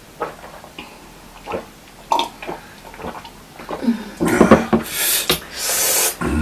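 Two people drinking from glasses: small sips and swallows, then from about four seconds loud breathy sighs and mouth sounds after the drink.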